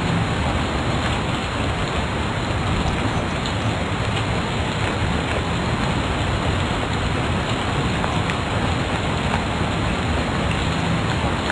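Steady, even hiss of background noise at a constant level, with no speech.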